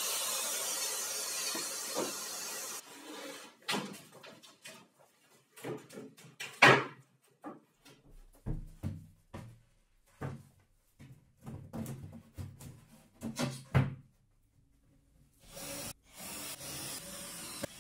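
A circular saw with dust extraction runs through film-faced plywood for the first few seconds, then cuts off abruptly. Scattered knocks and thumps of wooden panels being handled and set down follow, the loudest about six and a half seconds in. Near the end a cordless drill runs steadily, driving screws into a plywood shelf.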